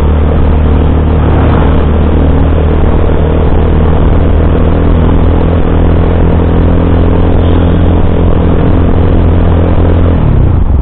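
Motorstar GPR250 motorcycle engine running at a steady cruising speed, recorded on the moving bike over a steady rush of wind and road noise. Near the end the engine note drops as the throttle is rolled off.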